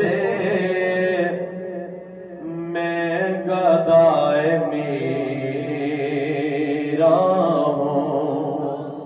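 A man's solo devotional recitation, chanted in long, melodic held phrases into a microphone, with a short breath-break about two seconds in.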